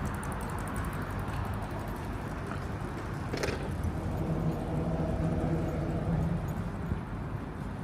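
Low, steady hum of a motor vehicle engine in urban traffic, swelling slightly about halfway through, with one brief sharp click near the middle.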